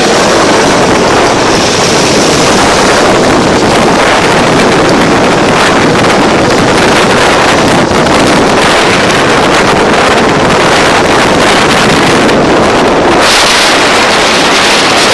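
Loud wind rush over the microphone of a moving Bajaj Dominar 400 motorcycle, with engine and road noise under it. The hiss grows brighter about thirteen seconds in.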